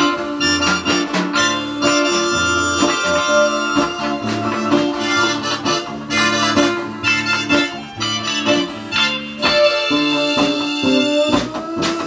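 Harmonica playing a melody over strummed acoustic guitar and bass guitar: a live band's instrumental break with no singing.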